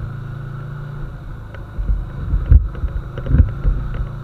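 Yamaha Virago XV125 air-cooled V-twin running at a steady low cruise through an exhaust with its baffle drilled out. Bursts of low rumble come in about two seconds in and again around three and a half seconds, and are louder than the engine.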